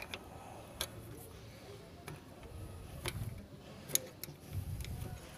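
Steel spanner working a nut loose on a Maruti 800's accelerator cable mounting: a few irregular metallic clicks and ticks, with low handling knocks in between.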